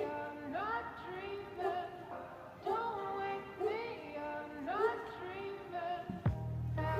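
Background music: a sung-sounding melody repeating a short swooping phrase, with a deep bass note coming in near the end.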